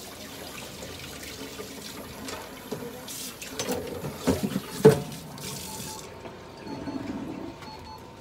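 Water running from a tap in a steady rush, shut off suddenly about six seconds in. A few knocks and one sharp clatter come just before it stops.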